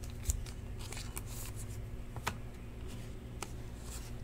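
A stack of football trading cards being thumbed through and slid between the hands: soft papery rustling with a few sharp card snaps, over a steady low hum.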